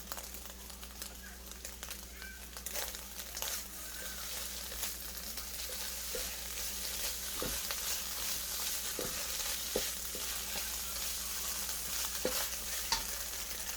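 Scrambled eggs sizzling in hot oil in a pot, cooking dry, with a utensil stirring and scraping them and occasional sharp clicks against the pot.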